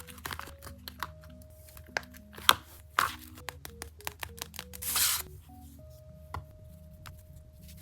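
Paper being handled for a paper squishy: scattered crinkles and sharp taps, with a louder half-second rustle or tear about five seconds in, over soft background music.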